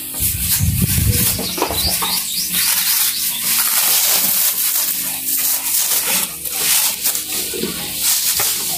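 Plastic bag and cling wrap crinkling and rustling as they are handled and pulled off an auger drill bit, with a low bump about a second in.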